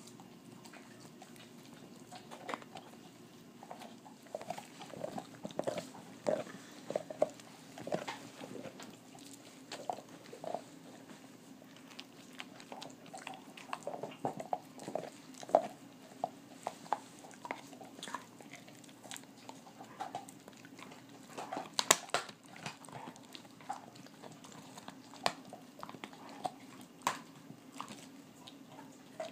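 Dogs gnawing a raw beef rib bone: irregular crunches and wet chewing and licking sounds, with a few sharp cracks a little past the middle.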